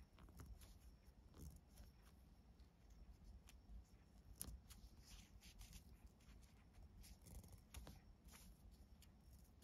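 Near silence with faint, scattered rustles and soft ticks of nylon paracord being handled and pulled taut by hand, one slightly sharper tick about four and a half seconds in.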